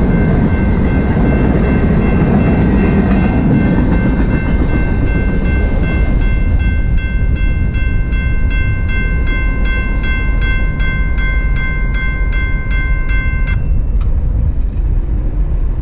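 The tail end of a freight train's cars rumbles over the crossing and fades over the first few seconds. Meanwhile the grade-crossing warning bell rings with rapid, evenly repeated strokes. The bell cuts off suddenly about 13½ seconds in as the crossing clears.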